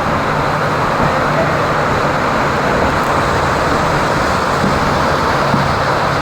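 Steady rushing of water on a waterpark river ride, with a low steady hum underneath.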